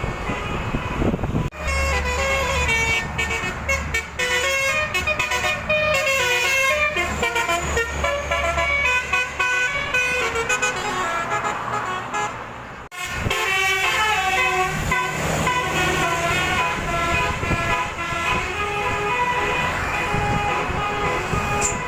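Bus telolet horns playing quick multi-note melodies, note after note, with a short break about halfway through before the tune starts again. A bus engine runs underneath during the first part.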